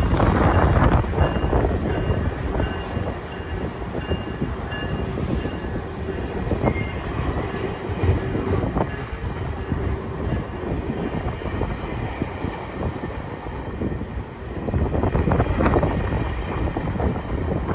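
GO Transit bilevel passenger coaches rolling past, their steel wheels rumbling on the rails. The rumble swells near the start and again near the end as coach ends and wheel sets go by, with a faint, broken high squeal in the first half.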